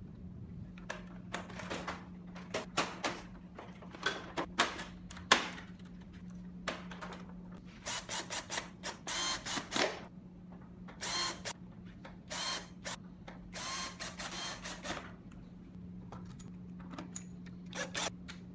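Plastic clicks, knocks and scraping as the casing of a wall-mounted split air conditioner's indoor unit is handled and snapped back together, with sharp clicks in the first few seconds and longer scraping sounds midway. A steady low hum runs underneath.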